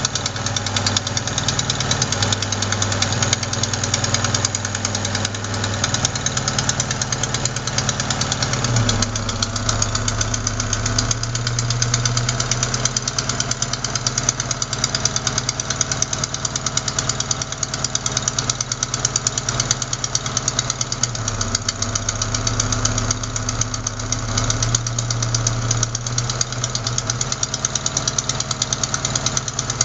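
Opel Ascona engine idling with a rapid, steady ticking knock. The uploader traced the knock to an exhaust manifold gasket leaking at cylinder 4, not to worn lifters or rockers.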